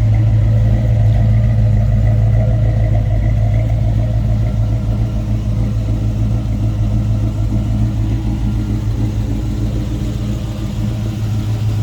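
Small-block Chevrolet 355 V8 crate engine idling steadily, a smooth low hum.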